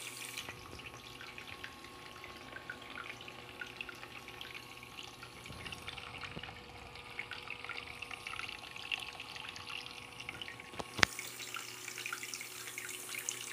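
Water trickling and splashing steadily with many small drips, over a faint steady tone. A single sharp click about eleven seconds in.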